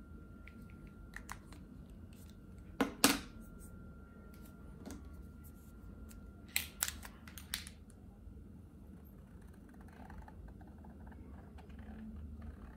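Plastic caps of Posca paint markers clicking shut and pulling off: two sharp clicks about three seconds in and a few more about seven seconds in. Near the end, a paint marker's tip scratches softly across paper.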